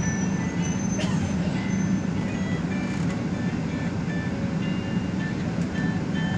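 Steady low rumble of engine and road noise inside a moving express commuter bus. A single sharp click or rattle sounds about a second in, and short high squeaks or tones come through now and then.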